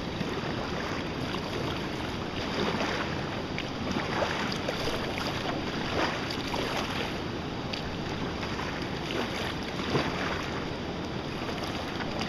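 Kayak being paddled on a river: steady rushing of moving water and wind on the microphone, with occasional brief splashes from paddle strokes.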